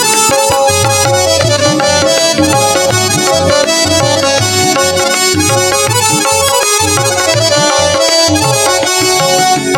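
Instrumental interlude of a Hindi devotional song: a harmonium plays a sustained reedy melody over a steady, repeating hand-drum beat.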